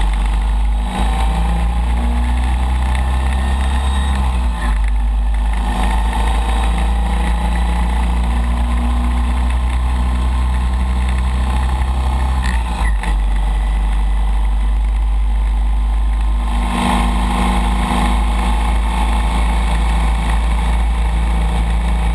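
Chang Jiang 750 air-cooled flat-twin engine pulling at road speed, with a heavy wind rumble. The engine note drops and picks up again a few times, as with gear changes, and rises slowly in between as the bike gathers speed.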